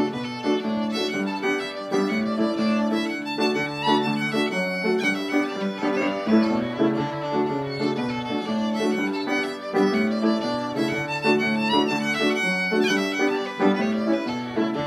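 A fiddle playing a tune with upright piano accompaniment, in a steady, even rhythm.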